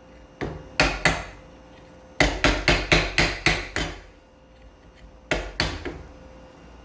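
Mallet blows on a chisel chopping waste out of wood: two sharp knocks about a second in, a quick run of about seven blows at roughly four a second, then two more near the end.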